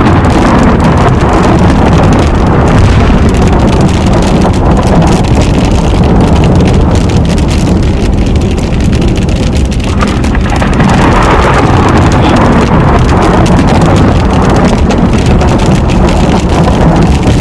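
Heavy rain from a thunderstorm pelting a moving car's roof and windshield, a loud continuous patter of many drops over the low rumble of the car on the road, heard from inside the cabin.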